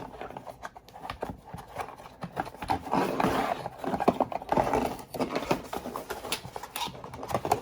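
A small tripod and its packaging being handled: irregular clicks, taps and rustling, the loudest clacks about three to four seconds in.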